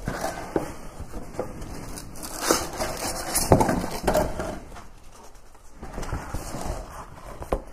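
Cardboard box flaps and styrofoam packing strips being handled and pulled out: irregular rustling, scraping and crackling with a few sharp knocks, busiest a few seconds in.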